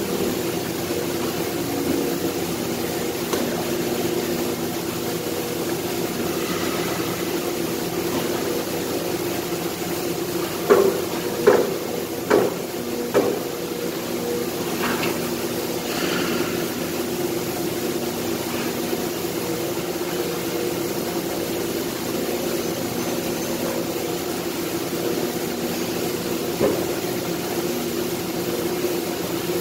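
Steady hum of running factory machinery, the large enclosed injection moulding machines of a plastics plant, with a steady pitched drone. A little over a third of the way in come four sharp knocks about a second apart, and one fainter knock near the end.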